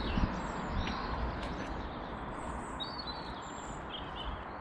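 Outdoor background: a steady rushing noise, strongest in the low end, with a few short bird chirps, a pair about three seconds in and another near the end.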